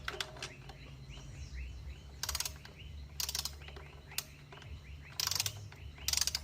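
Socket ratchet clicking in short bursts as it is swung back and forth, running down an ignition coil hold-down bolt, with a run of lighter ticks early on.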